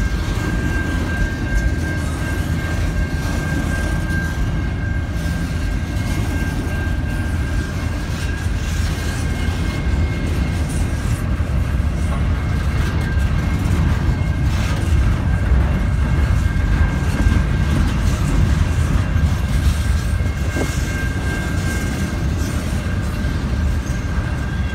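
Long freight train of double-stack container well cars rolling past close by: a steady rumble of wheels on the rails, with a thin high tone held throughout and a few faint knocks.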